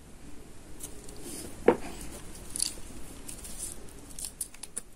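Small scissors snipping crochet yarn ends: a few short, quiet snips and clicks, the sharpest about a third of the way in.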